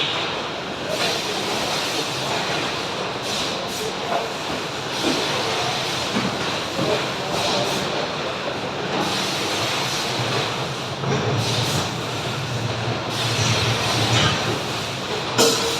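Factory machinery running: a continuous industrial din with a clattering, rail-like rhythm. Short bursts of hiss come every few seconds, and a low hum swells in the last few seconds.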